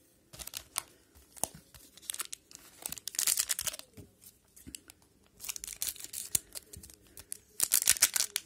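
A 2021-22 Parkhurst hockey card pack wrapper being crinkled and torn open by hand, in crackling spells, loudest about three seconds in and again near the end.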